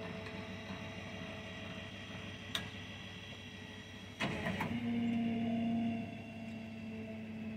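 Engine and hydraulics of a tilt-bed shed-hauling trailer running with a steady hum. There is a sharp click about two and a half seconds in and a clatter about four seconds in, followed by a louder hum for just over a second.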